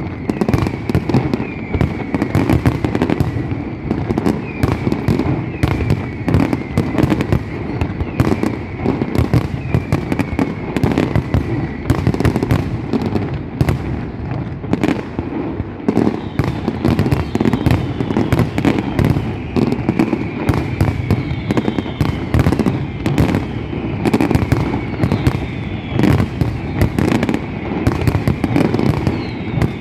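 A dense, unbroken barrage of fireworks: rapid bangs and crackling with no pause, over which short whistles repeatedly slide down in pitch.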